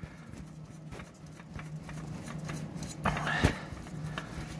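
Gloved hand spinning a new Fram oil filter onto its threaded mount by hand: faint rubbing and small ticks, with one louder scrape or knock about three seconds in.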